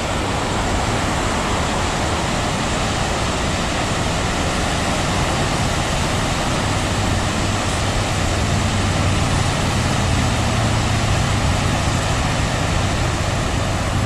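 Steady rushing roar of a river waterfall running high in a spring flood, with a low rumble swelling in the middle.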